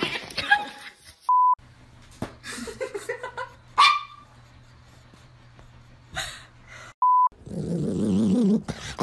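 Small dogs' voices across several short clips: a short, high yip about four seconds in, and a wavering, drawn-out sound near the end. Two short, steady electronic beeps sound, one about a second in and one about seven seconds in.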